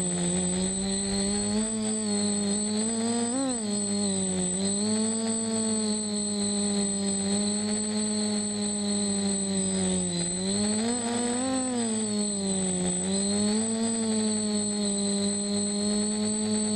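DJI F450 quadcopter's motors and propellers humming steadily, heard from the GoPro mounted on its frame, with a high electric whine above. The pitch rises and falls back briefly about three and a half seconds in, and again around eleven to twelve seconds, as the motors speed up and settle.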